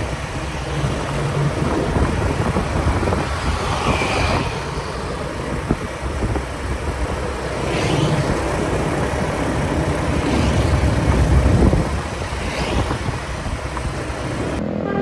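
A moving angkot minibus: a steady engine and road rumble that grows somewhat louder in the second half, then eases near the end.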